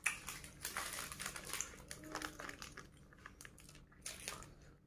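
Plastic ice lolly wrapper crinkling and rustling in the hand: a dense crackle that starts suddenly, is busiest for the first two seconds, then thins out, with a short flare again near the end.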